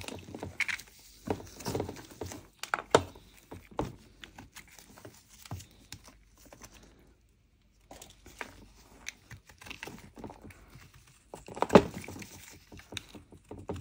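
Snap-off utility knife blade scraping and chipping the crust off a lump of mokko clay, in irregular strokes with flakes crackling and dropping. A pause of about two seconds past the middle, and the loudest scrape a little before the end.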